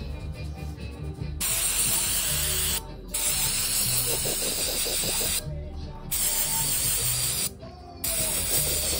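Aerosol spray can sprayed at a metal engine timing cover in four long hissing bursts of one to two seconds each, with short breaks between, the first starting about a second and a half in.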